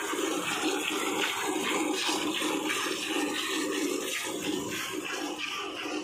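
Streams of milk squirting from a cow's teats into a steel bucket that already holds some milk, as the cow is milked by hand. It comes as a steady rhythm of hissing squirts, about two or three a second.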